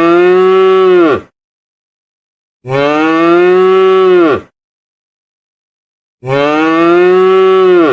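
A cow mooing: three long moos of nearly two seconds each, each dropping in pitch as it ends, with silent gaps between them.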